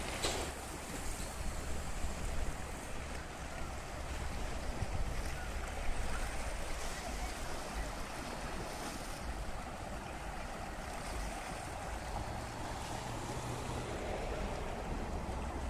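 Wind buffeting the microphone over the steady wash of small sea waves.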